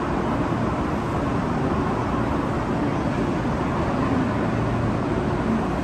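Steady background din of a large railway station, with trains standing at the platforms.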